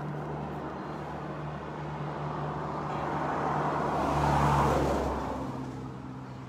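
A vehicle passing on the road, growing louder to its loudest about four and a half seconds in, then fading away, over a steady low hum.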